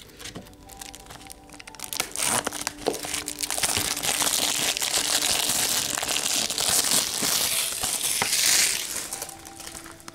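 Plastic shrink-wrap on a Blu-ray case crinkling loudly under the hands, from about two seconds in until near the end, with quiet music underneath.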